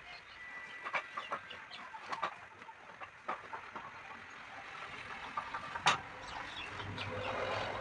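Scattered light clicks and rustles of heavy rubber being handled and smoothed at a tyre-repair patch press, with one sharper click about six seconds in.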